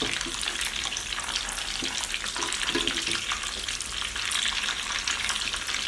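Marinated chicken pieces deep-frying in hot oil in a kadai, a steady crackling sizzle, as the pieces are turned over in the oil with a metal ladle.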